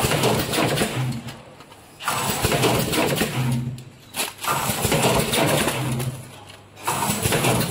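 Vertical form-fill-seal pouch packing machine running through its bagging cycle. A rush of noise lasts a second or two, with a low hum under it, then dies away and comes back about every two and a half seconds.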